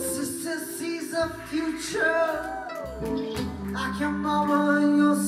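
Live band playing an instrumental passage between verses: a violin carries the melody, sliding between notes, over acoustic guitar and steady low bass notes.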